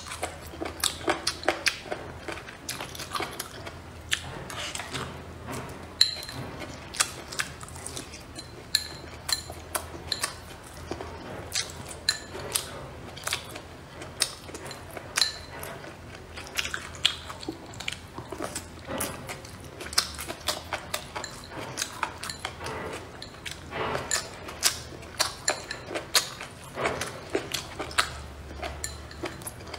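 A person chewing crunchy cold-dressed tilapia fish skin up close, with many crisp, irregular crunches and mouth clicks.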